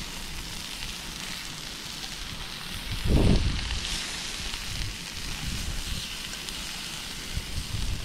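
Steak and mushrooms sizzling as they fry in lard in a pan on a camping stove, a steady crackle throughout. Wind rumbles on the microphone, loudest in a gust about three seconds in.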